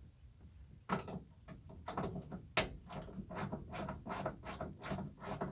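Phillips screwdriver turning out the screws of a tankless water heater's metal front panel: a run of short clicks and creaks, about two or three a second, starting about a second in.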